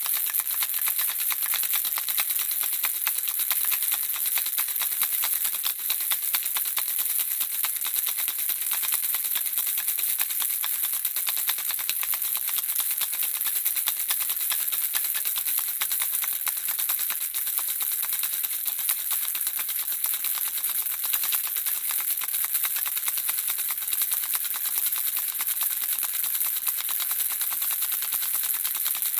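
Handheld baby rattle shaken continuously: a dense, even clatter of small objects inside it, high-pitched and without pauses.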